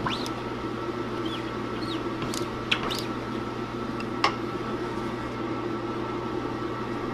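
Rubber squeegee dragged across a screen-printing screen, pushing blue ink through the mesh, with short rising squeaks in the first few seconds, then two sharp clicks, over a steady machine hum.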